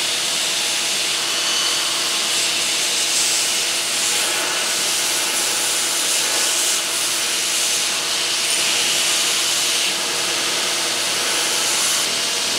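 Belt sander running with wooden knife grips held against the belt as they are shaped: a steady grinding hiss over the motor's hum.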